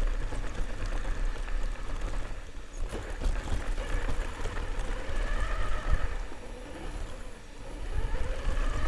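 Himoto RC car's upgraded electric motor whining, its pitch rising and falling with the throttle, over a rough rumble from the car running across dirt and gravel. The whine fades twice and comes back.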